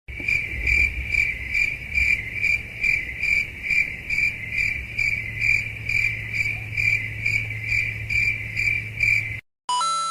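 Cricket chirping sound effect, the stock 'awkward silence' crickets, repeating steadily about two and a half chirps a second and stopping suddenly near the end. A short beep follows just before the end.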